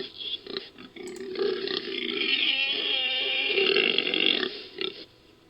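Creature sound effect for a Buru babirusa, built from babirusa and wild boar recordings: a few short grunts, then one long call lasting about three seconds, and one more short grunt near the end.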